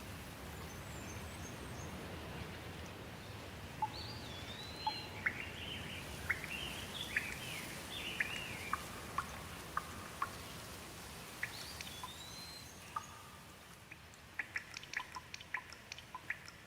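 Steady rain with birds calling in short whistled glides and chirps. In the last few seconds the rain thins and a quick run of sharp crackles from a wood fire comes through.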